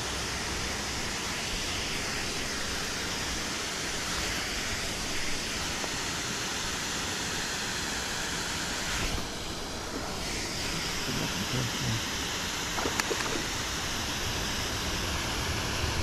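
Steady rush of fast-flowing river water at a waterfall, even and unbroken, with the hiss dulling briefly about nine seconds in.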